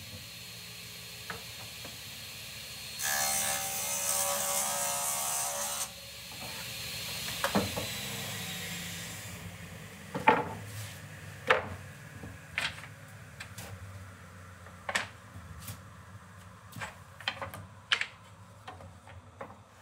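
Table saw running and cutting through a plywood panel for about three seconds, taking a thin trim off its width, then the blade sound fading. After that, a series of sharp wooden knocks as cut panels and strips are handled and set down on the saw's steel table.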